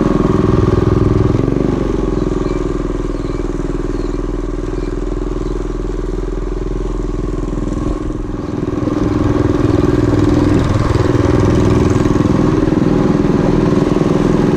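Mini bike's small single-cylinder four-stroke engine running under throttle while riding. It eases off about two seconds in and opens back up a little past halfway.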